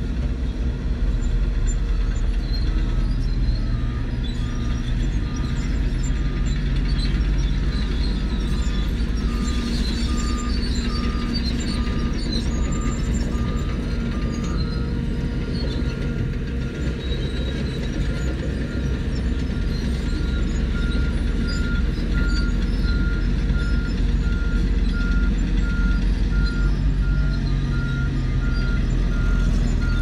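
Diesel engines of crawler bulldozers running under load with a steady low rumble, while a reversing alarm beeps evenly, about twice a second, through the first half. A second alarm at a slightly higher pitch starts about two-thirds of the way in.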